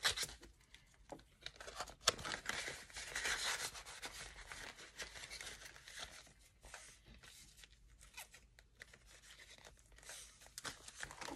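Paper rustling and crinkling as banknotes and paper cash envelopes are handled, with a couple of sharp clicks near the start.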